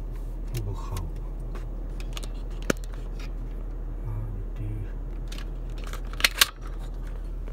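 Steady low hum of a car idling, heard inside the cabin, with a sharp click almost three seconds in and two louder clicks in quick succession near the end.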